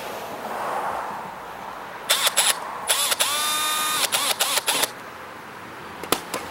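Lawn mower parts being handled and fitted: a run of sharp plastic-and-metal clicks and rattles about two seconds in, with a short squeak in the middle, and one more click near the end.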